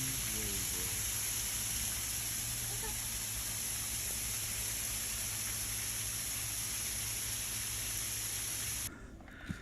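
Steady hiss with a low hum beneath, cutting off suddenly near the end.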